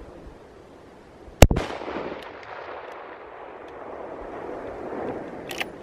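A single shot from a Sauer 200 STR bolt-action rifle about a second and a half in, its echo fading slowly over several seconds. A few light clicks come near the end.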